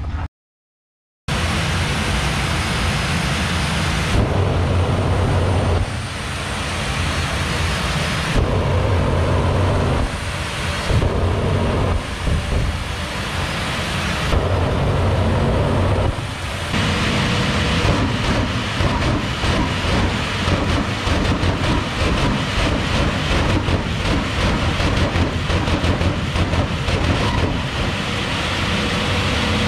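Jet funny car's jet engine running, a loud continuous roar that rises and eases several times before settling into a steady roar.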